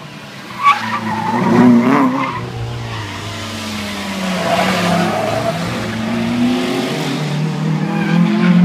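Rally car engine revving hard, rising and falling with the throttle, as the car slides sideways through a tight corner with its tyres skidding and squealing. A sharp crack comes about a second in.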